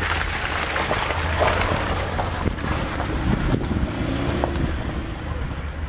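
Toyota RAV4's V6 engine running under load as the SUV drives through mud and up a dirt track, with a steady low rumble. Wind buffets the microphone.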